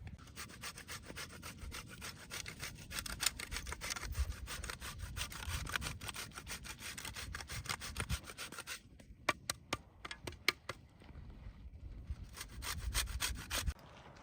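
Fast repeated rasping strokes of a hand tool working a surface, for about nine seconds, then a few separate clicks, then another short run of strokes near the end.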